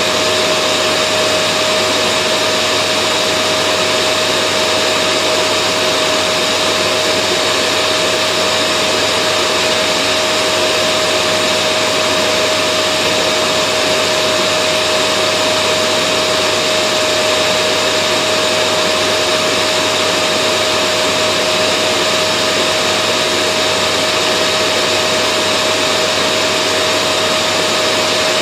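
Vacuum cleaner running steadily: a constant rushing motor noise with a steady whine.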